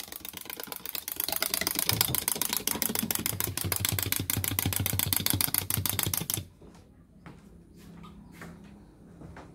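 Wind-up toy chick walking, its clockwork mechanism and plastic feet clattering in rapid, even clicks, about ten a second. The clicking stops abruptly about six and a half seconds in as the toy winds down, and a few faint clicks follow.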